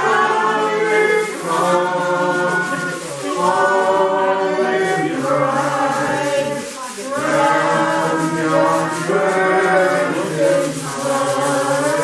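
Background music of several voices singing together in long, held notes, like a choir.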